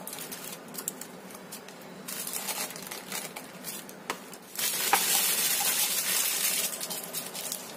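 A spoon scraping soft cookie dough out of a bowl into a plastic piping bag that stands in a glass, with scattered light clicks. About four and a half seconds in, the plastic bag crinkles louder for about three seconds as it is gathered up and twisted closed.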